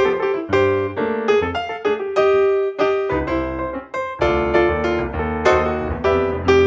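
Background piano music: a melody of struck notes, several a second, each ringing away.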